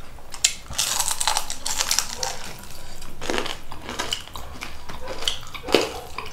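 Close-miked crunching and chewing of crisp fried food, a run of dense crackly crunches about a second in, then scattered smaller crunches.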